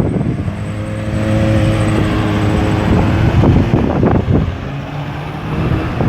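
Road traffic: a motor vehicle's engine drones steadily for a few seconds as it passes close by, over the general rumble of traffic.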